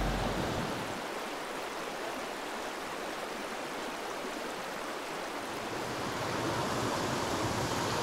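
Small mountain headwater stream rushing over a low cascade into a pool: a steady, even wash of running water that swells a little in the second half.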